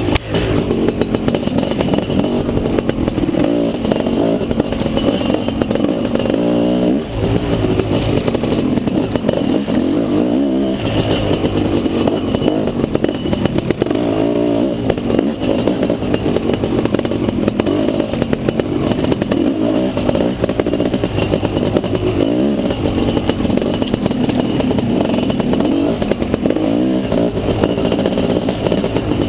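Dirt bike engine revving up and easing off over and over as it is ridden hard, with rattling and clattering from the bike. The throttle drops off briefly about seven seconds in.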